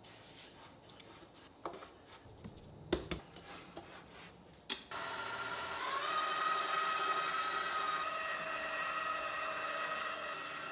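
A few light knocks and taps, then about halfway through a KitchenAid bowl-lift stand mixer's motor starts, its whine rising in pitch over about a second and then running steadily as it drives the pasta sheet roller attachment.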